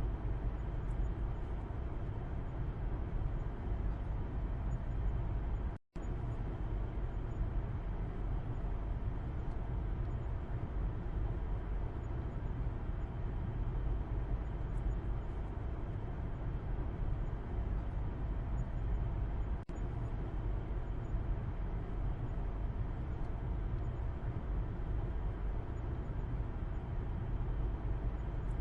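Car interior road noise heard from the back seat: a steady low rumble of tyres and engine while driving. The sound cuts out completely for a split second about six seconds in.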